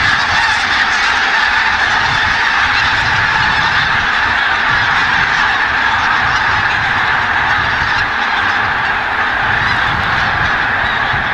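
A large flock of greater white-fronted geese and bean geese calling, a dense chorus of many overlapping calls that does not let up.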